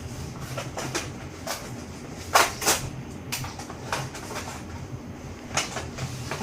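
Irregular clicks and knocks of hands working a part of a toy cash register free from its plastic and cardboard packaging, with two louder knocks about two and a half seconds in.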